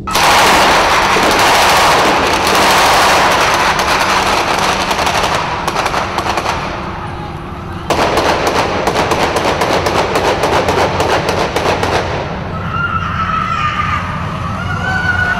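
Film sound effects of automatic gunfire: a dense, loud volley starting abruptly that thins out after a few seconds, then a second run of rapid, evenly spaced shots about eight seconds in that lasts some four seconds. High wavering sounds follow near the end, over a low steady drone.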